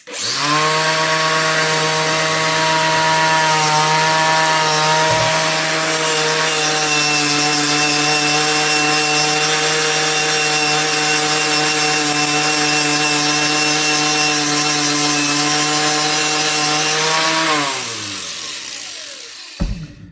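Motor-driven wire wheel spinning up and scrubbing corrosion off an old blackened steel screwdriver, a steady motor whine under a loud brushing hiss. About seventeen seconds in the motor switches off and winds down, its pitch falling away.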